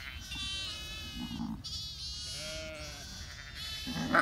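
Lambs bleating over and over in high, wavering calls that overlap. A lower sheep bleat comes partway through, and a louder, lower call comes near the end.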